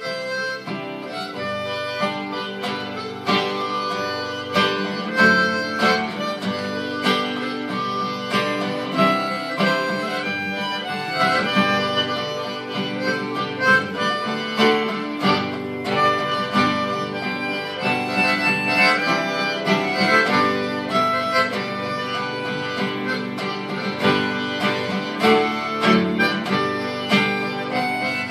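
A harmonica playing a melody over acoustic guitar accompaniment.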